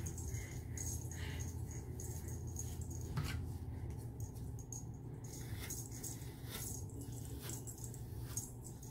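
Scattered light clicks and rustles of a comb and hands working through hair, over a steady low hum.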